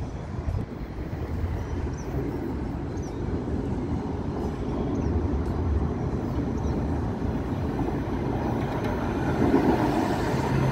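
Hudson-Bergen Light Rail electric light-rail train approaching and pulling in along the platform. Its running rumble grows steadily louder, and a low steady hum comes in near the end as it draws alongside. A few faint bird chirps are heard early on.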